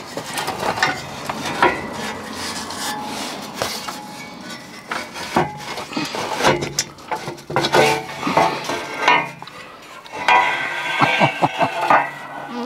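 Steel exhaust header (extractors) clanking and scraping against the car's chassis and engine bay as it is worked loose and pulled out from underneath, with irregular metal knocks and a busier run of clatter near the end.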